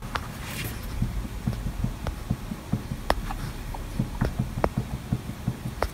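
High-speed CNC router spindle turned slowly by hand at the collet, giving a run of soft knocks and sharper clicks, several a second. This knock is one the owner suspects comes from loose bearing preload or bearings on the way out.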